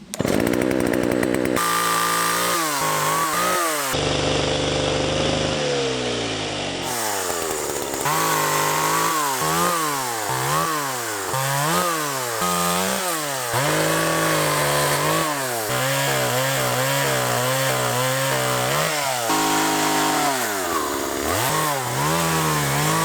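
Small petrol chainsaw cutting a fallen willow, its engine revving up and dropping back over and over as the chain bites into the wood. It holds a steadier note for a few seconds early on, and the sound changes abruptly at a few points where shots are spliced together.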